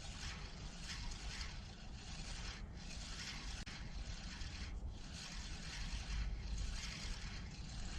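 Spinning reel being cranked to retrieve a lure, a rasping that pulses about twice a second with each turn of the handle, over a low rumble.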